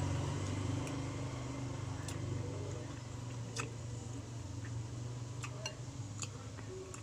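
A steady low mechanical hum, such as an engine idling nearby, that fades after about six seconds, with a few light clicks scattered through it.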